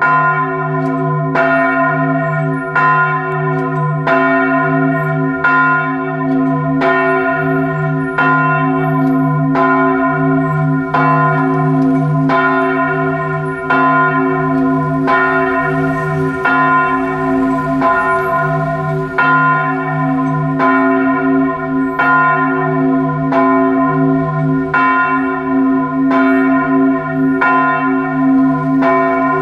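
Church bells of the Duomo di San Giorgio tolling a death knell. The strikes come about once a second, and their ringing overlaps into a continuous hum.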